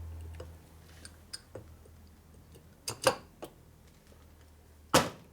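Light metallic clicks and taps of bolts and hand tools being handled while the cam cover is fitted on the engine, with a sharper clack about three seconds in and the loudest one near the end. A low hum fades out in the first moment.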